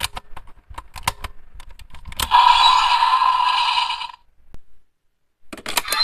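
Plastic clicks and snaps as a Gigant Buckle is fitted into a DX Powered Builder Buckle toy. About two seconds in, a loud click sets off about two seconds of electronic sound effect from the toy's speaker, and a few more clicks come near the end.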